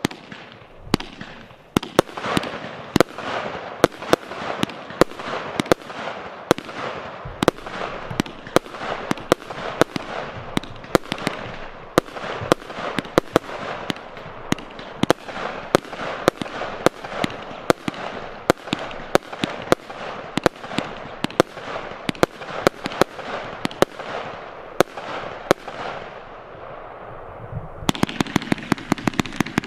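A 293-shot, 25/30 mm consumer firework battery (cake) firing shot after shot, about three sharp reports a second with crackling stars between. Near the end it switches to a faster rapid-fire run of shots.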